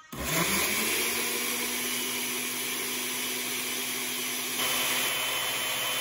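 Oster countertop blender switched on: its motor spins up quickly and then runs steadily at a high, even speed, blending a milk mixture in a glass jar.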